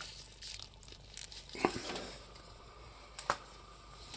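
Plastic Masters of the Universe Origins Rokkon action figure being handled, with soft rustling and two sharp plastic clicks, one about a second and a half in and one a little past three seconds, as its limbs are popped off the body.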